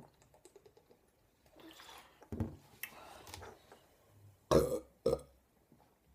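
A woman belching several times, the carbonation gas of a large bottle of cola coming up; the loudest burp comes about two-thirds of the way through, followed by a shorter one.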